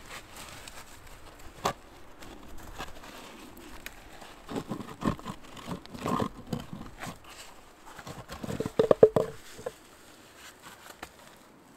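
Boots crunching and shuffling in snow while gloved hands work a snow-covered stone slab loose from the frozen ground, with a quick cluster of loud crunches and scrapes about three-quarters of the way through.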